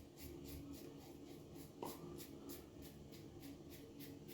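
Gillette Black Tip safety razor with a Feather blade scraping through a day's stubble in short strokes, about four a second, faint, with one light knock about two seconds in.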